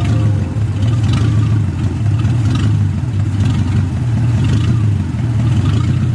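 Lexus SC400's 1UZ-FE V8 running rough with an uneven, pulsing beat: one cylinder bank is not firing, so the engine is running on only one bank.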